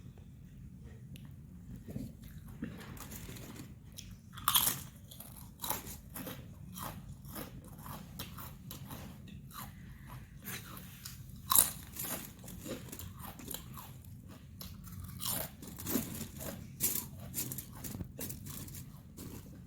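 Close-up crunching and chewing of crisp chips in a mukbang: a string of sharp crunchy bites and chews, the loudest bites about four and a half and eleven and a half seconds in.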